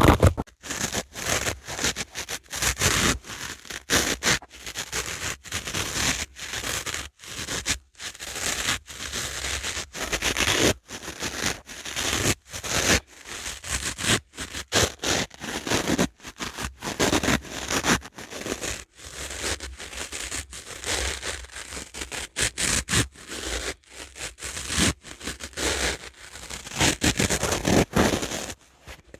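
Dry sponge being worked close to the microphone: a rapid, unbroken run of short crackly scraping strokes, several a second.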